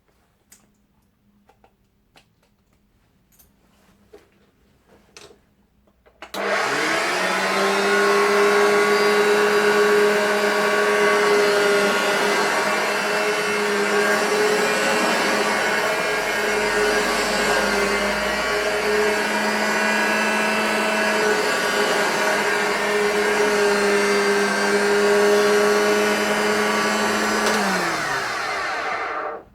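Hoover Junior 1036 flat-belt upright vacuum cleaner: a few faint handling clicks, then the motor switches on about six seconds in and runs steadily, sounding a little rough. Near the end it is switched off and winds down, falling in pitch. The owner hopes the roughness is just the worn drive belt.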